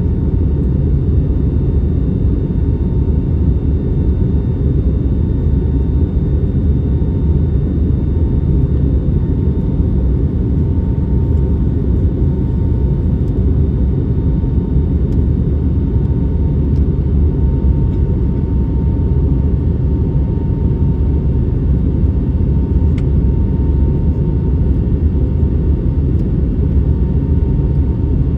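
Airbus A321neo cabin noise in flight: a steady, even rumble of engines and airflow, with a faint steady tone above it.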